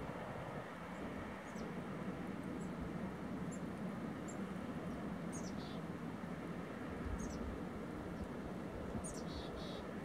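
Steady hiss of wind and rippling lake water, with a small bird giving short, high chirps scattered throughout. A gust buffets the microphone with a low rumble about seven seconds in.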